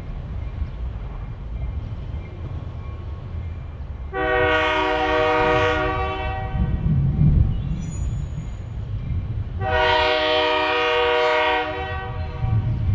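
Diesel locomotive's multi-chime air horn sounding two long blasts about five seconds apart over the low rumble of the train moving along the track.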